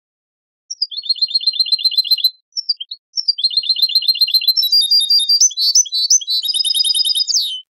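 European goldfinch song from an old Moroccan 'Ceuta-style' song-tutoring tape: two fast trills of repeated high notes, about nine a second, then after a short break a run of quicker, more varied twittering phrases. It starts about a second in and stops just before the end.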